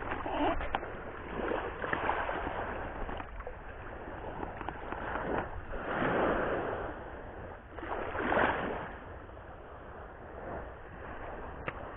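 Sea waves washing onto a rocky shore, with surges about two, six and eight and a half seconds in, over a steady low rumble.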